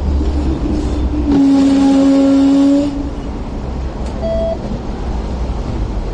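Low steady rumble of a Hong Kong tram standing at a stop, with a loud, steady horn-like note lasting about a second and a half a little after the start, then a short electronic beep about four seconds in.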